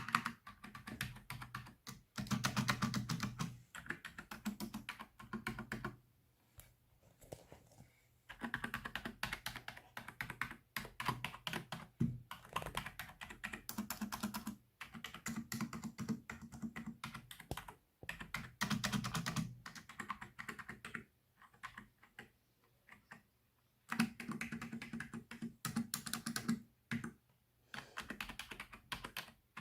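Mechanical keyboard with red switches being typed on in bursts of rapid, clicky keystrokes, with short pauses between bursts.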